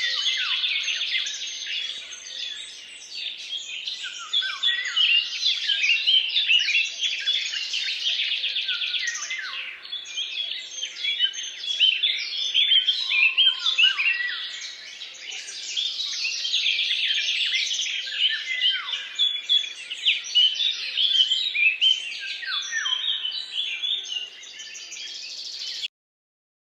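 Several songbirds chirping and singing at once: a dense, overlapping mix of quick chirps, trills and short downslurred whistles. It cuts off suddenly near the end.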